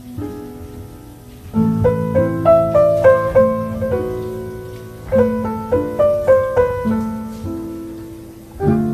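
Background piano music: a slow melody over chords, each note struck and fading. New phrases begin about a second and a half in and again about five seconds in.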